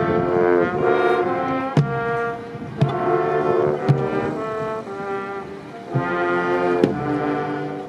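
High school marching band playing a series of held brass chords, each lasting about a second, punctuated by several sharp percussion hits.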